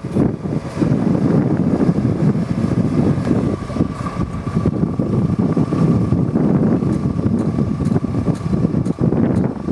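Liebherr 914 Compact excavator's diesel engine running steadily, with a faint steady whine for a few seconds around the middle.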